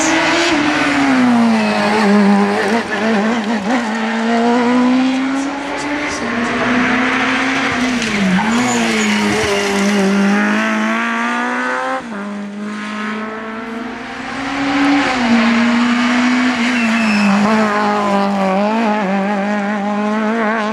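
Hillclimb race car engines at full throttle, one car after another, the engine note repeatedly climbing and dropping through gear changes and lifts for the corners, with tyres squealing at times. The sound cuts to a different car about halfway through.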